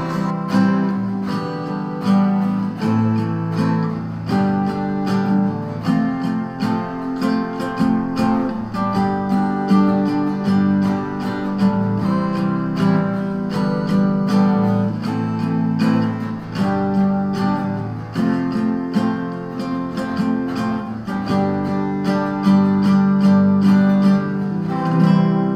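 Nylon-string classical guitar strummed solo, chords changing in a steady rhythm of repeated strokes.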